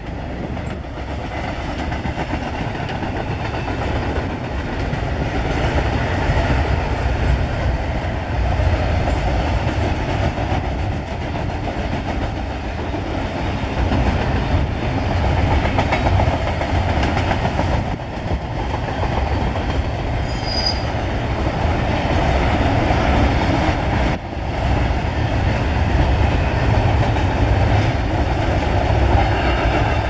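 Double-stack container freight train rolling past: a steady rumble and rattle of the cars' wheels on the rails.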